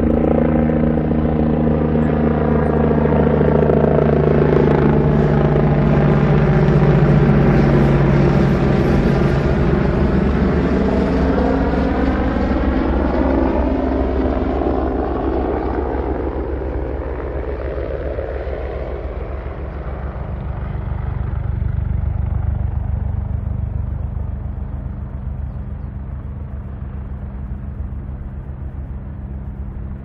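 Air-ambulance helicopter flying past and coming in low: steady rotor and turbine noise with slowly sweeping changes in tone, loudest for the first third, then fading.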